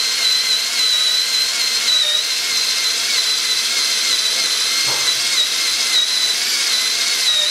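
Cordless drill running steadily at speed with a rubber sticker-eraser wheel pressed to a car's window glass, rubbing off sticker residue. A continuous high whine that wavers slightly in pitch as the wheel is pressed and moved.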